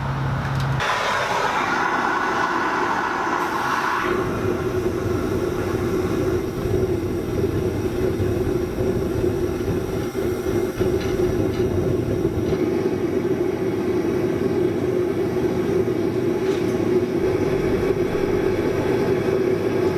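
A forge running steadily with a constant rushing noise and low hum while a chunk of steel heats in it; there is an added brighter hiss for the first few seconds.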